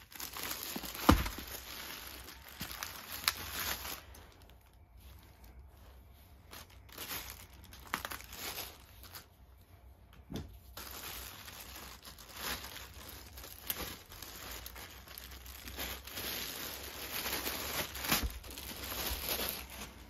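Clear plastic wrapping crinkling and rustling as it is worked off a hard plastic case, with a few dull thumps. The rustling eases off for several seconds in the middle, then picks up again.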